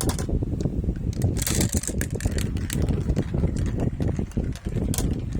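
Many marbles rolling along a marble run track: a continuous rolling rumble with frequent small clicks and clacks as they knock against the track and each other.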